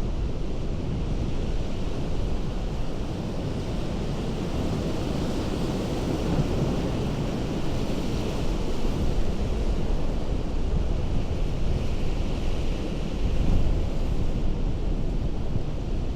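Ocean surf breaking on a rocky coast: a continuous rush of water that swells and eases, with a low rumble of wind on the microphone.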